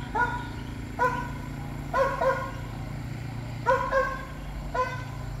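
A dog barking about seven times, some barks in quick pairs, over the steady low hum of an ATV's engine running.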